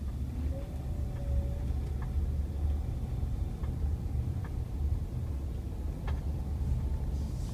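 Subaru Forester pulling away from a stop into a sharp right turn: a steady low rumble with a few faint knocks scattered through it. The knocks are the knocking noise the car makes when turning, slighter once past the initial turn.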